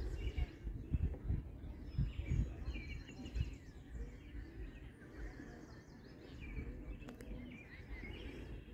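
Small birds chirping and calling on and off, with low rumbling buffets on the microphone during the first few seconds and a single sharp click about seven seconds in.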